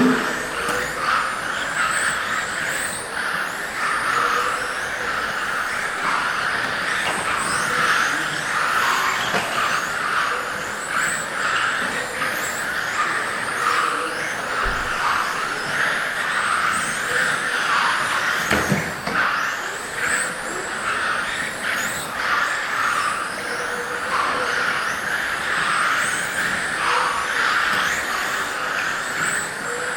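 Several electric RC GT cars with 17.5-turn brushless motors racing round a track. They make a constant whir of motors and gears, with many high whines rising and falling as the cars accelerate and slow.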